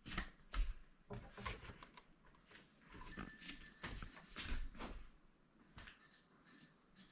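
Bicycle bell ringing: one ring about three seconds in that sounds for about two seconds, then a few quick rings near the end. Soft scattered knocks and rustles come before the bell.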